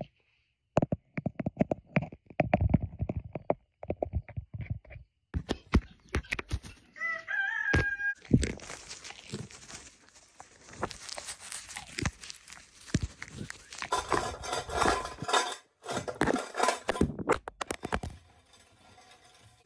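Farm birds close to the phone: a rapid run of sharp knocks and taps, a short chicken call about seven seconds in, then steady rustling and scuffling with more taps.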